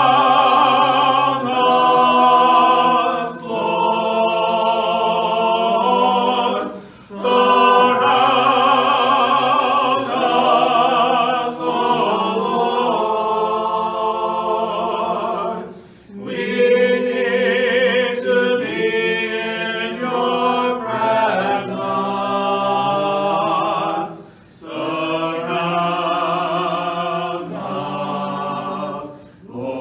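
Choir singing a hymn without accompaniment, in long held phrases broken by short pauses about every eight seconds.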